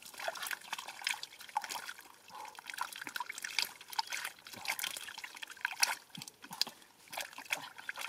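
Thick wet mud squelching and sloshing as gloved hands dig through it and scoop it into a perforated basket, with irregular small splats and water trickling and dripping.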